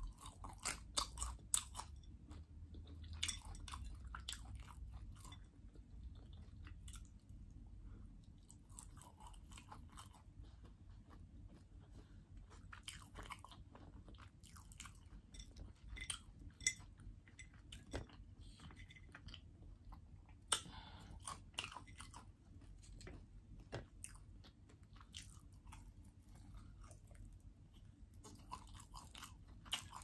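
A person chewing and biting into fried potatoes and roasted chicken, with irregular crisp crunches throughout. The sharpest crunches come near the start and about two-thirds of the way in.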